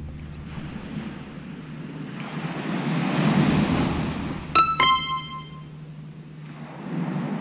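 Surf washing on a sandy beach, swelling and easing. About four and a half seconds in, two quick bell-like chime notes ring out and fade.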